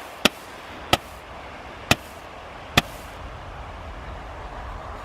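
Small 1.4 gram Roman candles firing: four sharp pops, roughly one a second, that stop about three seconds in.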